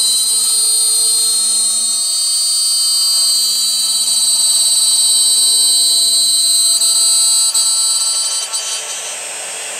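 High-speed spindle of a CNC aluminum profile drilling and milling machine whining steadily at a high pitch as its small end mill cuts holes in an aluminum profile. Near the end the whine fades and the sound drops to a quieter hiss.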